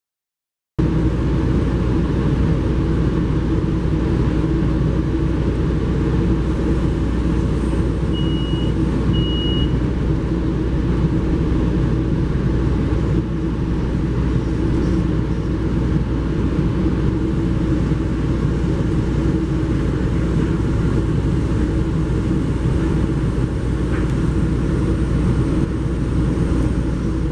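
Steady rumble and running noise heard from inside a moving passenger vehicle, starting abruptly just under a second in. Two short high beeps sound about eight and nine seconds in.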